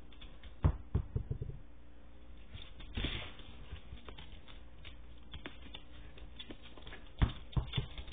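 A puppy moving about close to the microphone on a hardwood floor: scattered taps and scuffles of paws and claws, in a cluster about a second in, again about three seconds in, and a few sharper knocks near the end.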